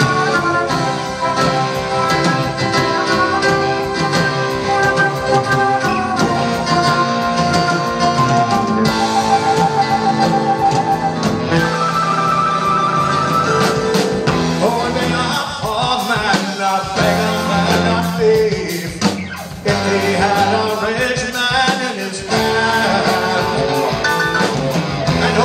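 Live rock band playing an instrumental passage, with flute carrying the melody in held, wavering notes over electric guitars, bass and drums.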